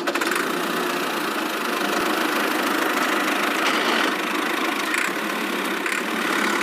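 A small motor running steadily, with an even, fast mechanical rattle and no change in speed.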